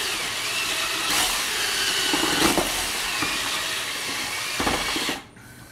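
Cordless drill with a mixing paddle running steadily, churning water-thinned joint compound in a plastic bucket; it stops abruptly about five seconds in.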